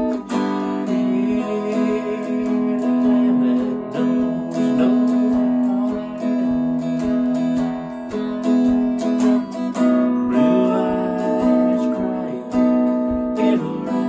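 Clean-toned Telecaster-style electric guitar playing an instrumental passage of a slow country ballad, picked melody notes over ringing chords, with no singing.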